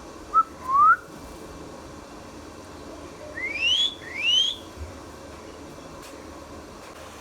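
Indian ringneck parrot whistling. A short chirp and a rising whistle come within the first second, then two longer rising whistles follow close together about three and a half seconds in.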